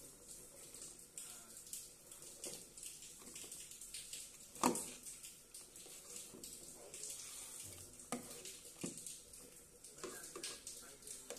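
Metal ladle stirring meat and broth in a steel pot, the liquid sloshing, with scattered clinks of the ladle against the pot; the sharpest clink comes about four and a half seconds in.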